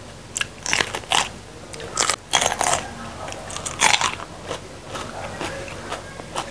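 Crisp crunching bites into a raw bitter melon, with chewing in between; clusters of sharp crunches come at about half a second, two seconds and four seconds in.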